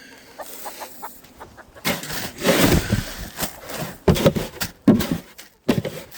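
Chickens clucking in the coop, broken by several loud, irregular bursts of noise about two, four and five seconds in.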